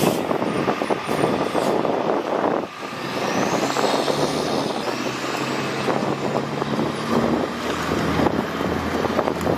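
A fire engine's diesel engine running as the truck drives past at close range, then an ambulance going by.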